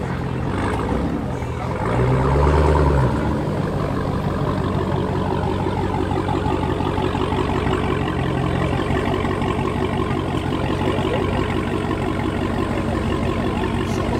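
Dodge Charger SRT's V8 running at low speed through its exhaust as it rolls past, with one short rev about two seconds in that rises and falls.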